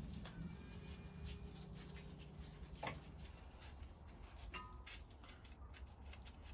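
Faint rubbing and light clicks of parts being handled during engine strip-down, with a sharp click about three seconds in. A low steady hum runs underneath and stops just after the click.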